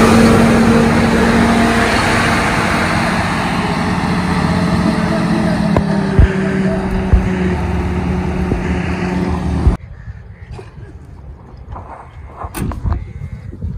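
Heavy truck engine running close by as the truck drives along a dirt track. It cuts off abruptly about ten seconds in to a much quieter background with a few sharp knocks.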